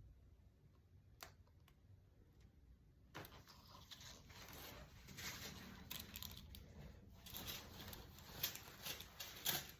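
Faint rustling and scraping handling noises with several sharp clicks, starting about three seconds in.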